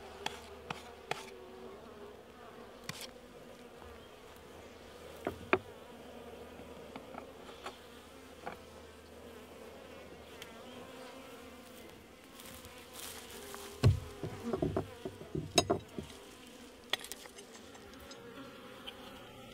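Honey bees buzzing steadily around a hive, with scattered clicks and knocks from the hive being handled, the loudest a cluster of knocks about two-thirds of the way through.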